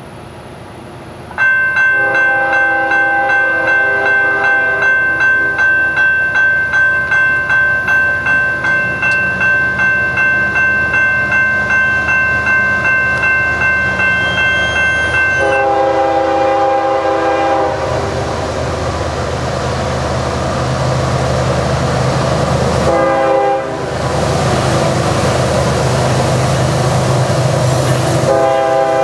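A bell ringing about twice a second. It stops and a diesel freight locomotive's air horn takes over with its grade-crossing signal: a long blast, a short one, and another long one starting near the end, over the rumble of the approaching train.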